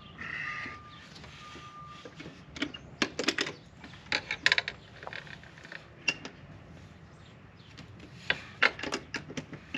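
Clusters of short metallic clicks and taps from hands-on work fitting a storm door closer and its hardware, with a brief rustle near the start.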